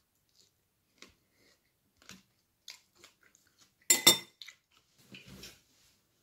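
A person chewing, with small scattered mouth clicks, then a short loud clatter of hard objects about four seconds in, and a rustle of clothing and movement as he gets up.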